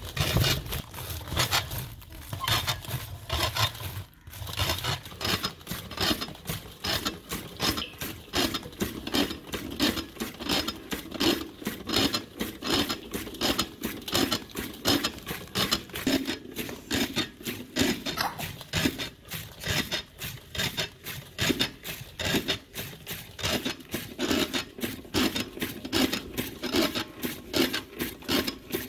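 Hand-cranked rotary toka cutter chopping fresh spinach: its blades slice through the leaves in a steady run of quick chops, about three or four a second.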